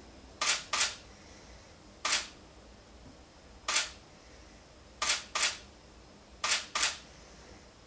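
Sony camera's shutter firing about eight times, sharp clicks coming singly and in quick pairs as frames are taken in short bursts.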